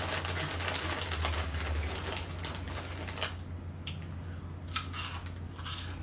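Crisp snack bags crinkling in the hands and crunchy onion-ring snacks being eaten: a run of irregular clicks and crackles over a steady low hum.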